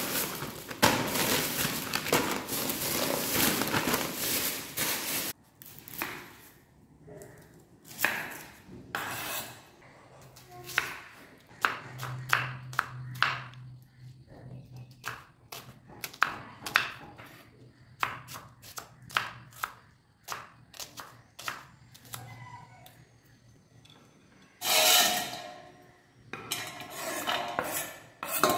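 A plastic chips packet crinkling for the first five seconds. Then a serrated knife cutting a red onion on a wooden chopping board, in sharp, irregular taps about a second apart. Near the end, the chopped onion is scraped off the board with the knife into a steel bowl.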